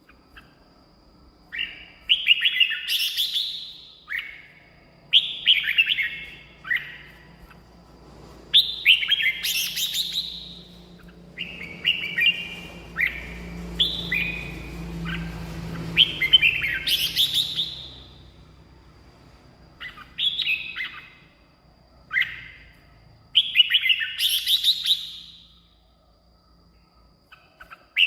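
Red-whiskered bulbul singing: about nine short, bright, warbled phrases with pauses of about a second between them, then a quiet stretch of a couple of seconds near the end.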